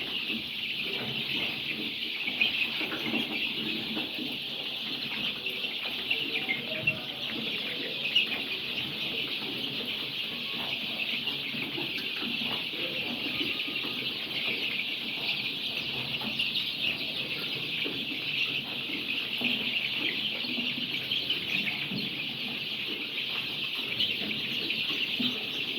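A large flock of about 3,000 young layer chicks peeping all at once in a dense, unbroken high chorus.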